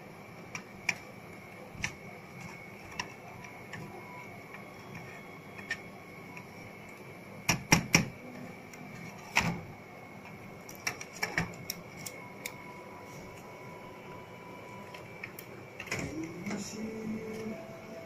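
Scattered clicks and knocks of a plastic PC case front panel and its power-switch parts being handled and taken apart, with a cluster of sharper knocks about halfway through, over a faint steady whine.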